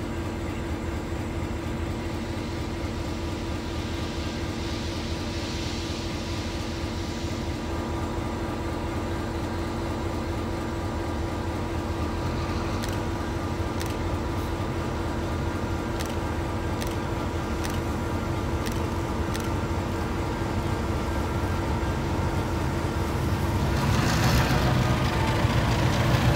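Steady low rumble of a running vehicle engine with a constant hum, a few faint ticks in the middle, growing louder with a rush of hiss near the end.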